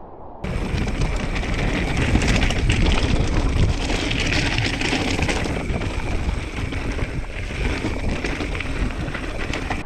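Mountain bike riding down a loose rocky trail, heard from a rider-mounted camera. The tyres crunch and clatter over stones, the bike rattles, and wind buffets the microphone. The sound cuts in suddenly about half a second in.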